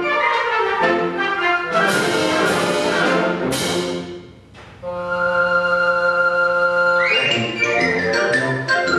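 Concert band of woodwinds and brass playing a lively piece. The playing breaks off briefly about four and a half seconds in, a chord is held for about two seconds, and the busy playing then comes back.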